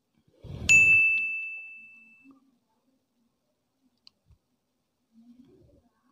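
Metal heatsink bracket of a small amplifier board set down with a sharp clink that rings on as one clear high tone for about a second and a half, just after a brief rustle of handling. A faint tick and light handling noises follow later.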